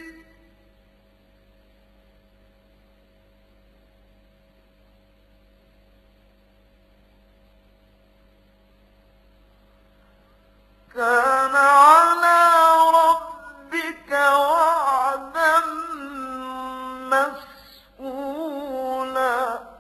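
A steady electrical hum for about the first eleven seconds, then a man recites the Quran in Arabic in a slow, melodic chant, in several drawn-out phrases with short breaks between them.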